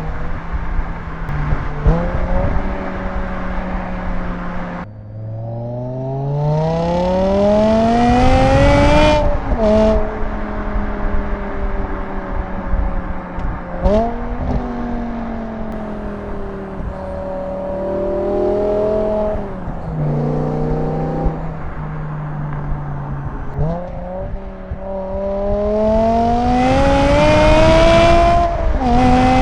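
BMW S85 5.0-litre naturally aspirated V10 in an M6 E63 pulling hard twice, its pitch climbing for several seconds each time before dropping sharply at an upshift. Between the pulls it runs steadily at lower revs, with a brief throttle blip about halfway through.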